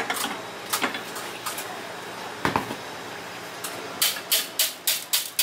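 Large stand-mixer balloon whisk and steel mixing bowl clanking against each other: a few scattered clinks and a heavier knock, then a quick run of sharp metal clanks, about four or five a second, as the whisk is knocked against the bowl to shake off the whipped meringue.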